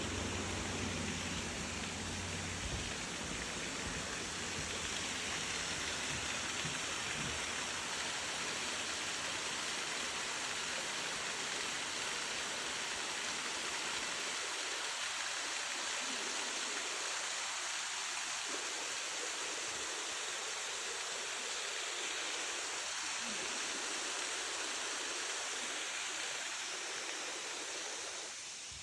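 Waterfall running steadily, an even rushing of falling water, with a low rumble in the first couple of seconds.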